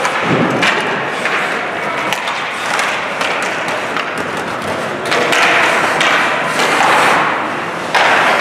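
Ice hockey play in an indoor rink: skate blades scraping the ice and sharp clacks of sticks and puck, with voices calling out over it. The scraping swells louder several times, most strongly in the second half.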